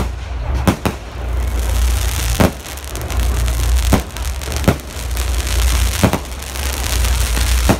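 Aerial fireworks shells bursting, about seven sharp bangs at uneven intervals, with a crackling hiss between them from about two seconds in. A steady low rumble runs underneath.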